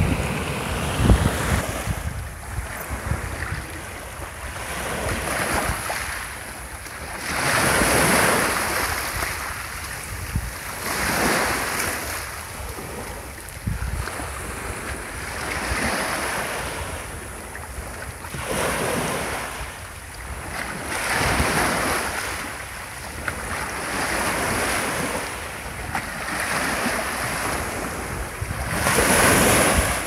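Sea waves washing onto the shore, a rush of surf swelling and fading about every two and a half seconds. In the first second or two, rougher surf with wind rumbling on the microphone.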